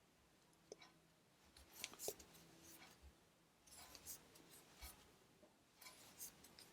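Faint rustling and scattered soft ticks of a crochet hook working cotton yarn.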